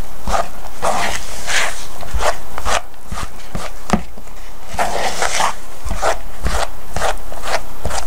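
Bare hands mashing and kneading a sticky peanut butter, powdered sugar and butter mixture in a bowl: irregular squishing and rubbing noises with small clicks.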